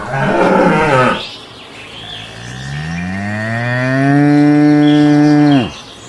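Cow mooing: a short, rough moo at the start, then a long, loud moo that rises in pitch, holds for a couple of seconds and drops away abruptly near the end.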